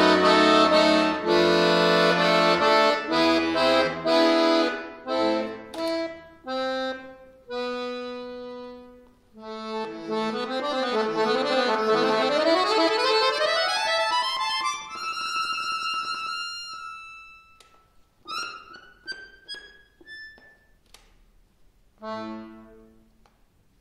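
Button accordion (bayan) playing a solo classical piece: loud full chords at first, then fast runs sweeping up and down, then sparse high single notes dying away, and one short final chord near the end that closes the piece.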